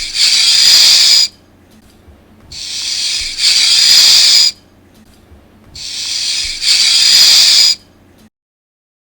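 Snake hiss sound effect from a children's sound book's speaker, played three times. Each hiss is about two seconds long: it swells, then hisses loudly and cuts off.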